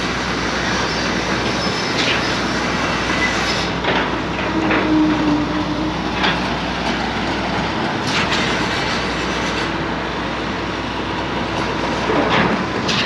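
Cifa K55L truck-mounted concrete boom pump working, a steady mechanical noise with a sharp knock every two seconds or so as the pump changes stroke.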